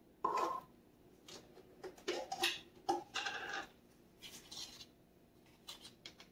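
Short kitchen handling noises: a can put back on the counter, then a plastic tub of baking soda handled and a metal measuring spoon dipped into it. About six brief knocks and rustles with pauses between.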